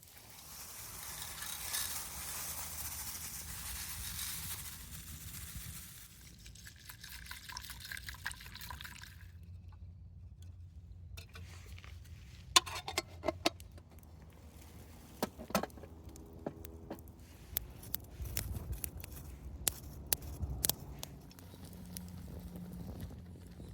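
Liquid poured into a container: a steady hiss of the pouring stream for about six seconds, then a ringing filling note, followed by scattered light clicks and knocks of cookware being handled.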